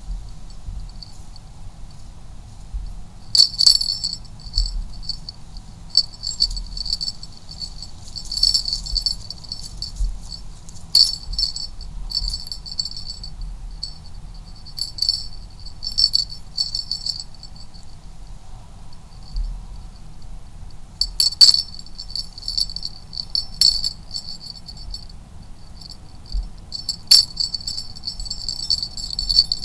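Cat wand toy rattling in short, irregular high-pitched bursts as it is shaken and batted at by a kitten, with a faint low rumble underneath.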